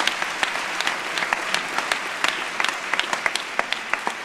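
Audience applauding, with many sharp separate hand claps standing out from the steady clapping.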